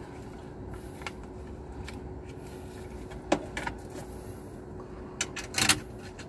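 Sharp metallic clicks and clinks of a socket wrench on the strap clamp of an Airbus A320 crew oxygen cylinder, a few spaced out and then a quick cluster of louder ones near the end, over a steady background hum.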